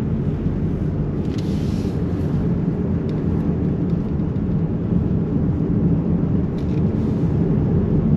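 Steady low rumble of a car driving along a paved road, with engine and tyre noise heard inside the cabin.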